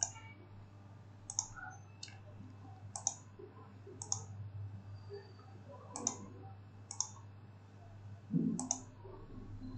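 Computer mouse buttons clicking while context menus are worked: eight single, sharp clicks, mostly about a second apart, over a faint steady low hum.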